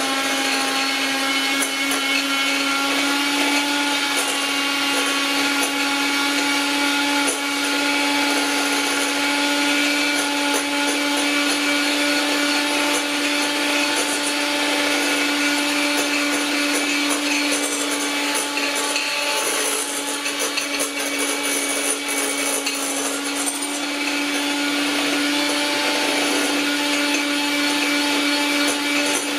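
White electric hand mixer running steadily at a constant pitch, its beaters whipping egg whites in a glass bowl.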